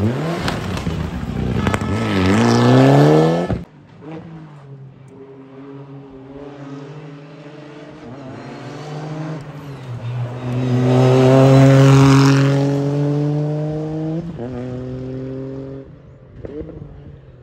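Rally cars at full throttle: first a car accelerating hard out of a hairpin, its engine rising in pitch with a brief dip before cutting off abruptly a few seconds in. Then a second rally car's engine is heard approaching and pulling hard, loudest past the middle, with a short break for a gear change before it fades away.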